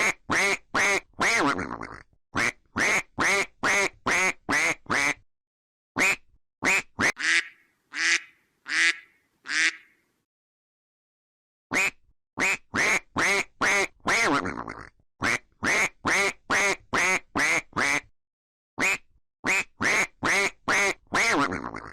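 A duck quacking in quick runs of short quacks, about three a second, with four longer drawn-out quacks near the middle; the runs are broken by stretches of dead silence.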